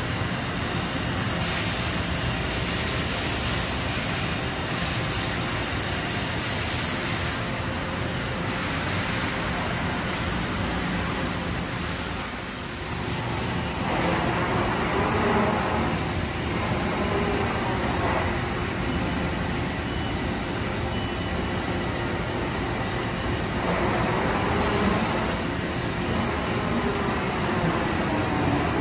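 Steady machine-shop noise, a continuous rumble and hiss. From about halfway through, a whine rises and falls in pitch several times over it.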